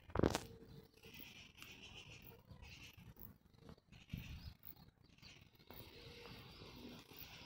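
Domestic cat purring faintly close by, with a brief thump about a quarter of a second in.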